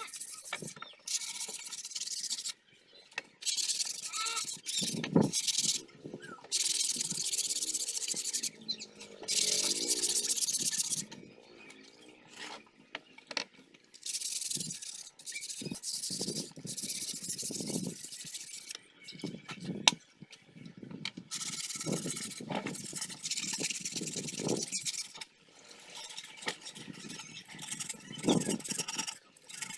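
Sandpaper rubbed by hand over filled putty on a box, smoothing the filler before painting: rough rasping strokes lasting a second or two each, with short pauses between them.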